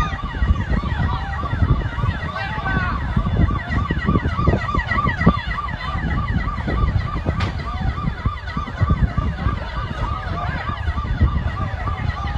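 Emergency vehicle sirens, one yelping rapidly at about three rises and falls a second, over a steady low rumble.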